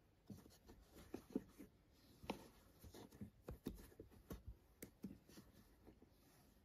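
Faint, irregular rustling and light clicks of a crochet hook working yarn in slip stitches.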